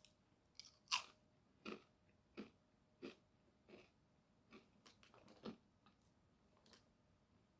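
A person chewing crunchy salsa verde tortilla chips dipped in guacamole. A crisp crunch comes roughly every two-thirds of a second, the loudest about a second in.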